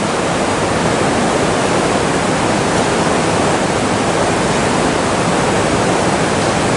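Steady, loud rush of river water running over a rocky bed.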